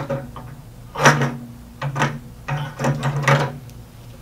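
Metal clunks and rattles of the Micro-Touch stabilizer's mounting plate being fitted down into the table-mount plate. There are several knocks, the loudest about a second in and a quick cluster near the end.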